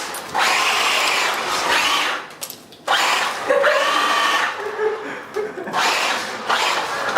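Remote-control car's small electric motor and drivetrain whining in several throttle bursts, starting and stopping a few times.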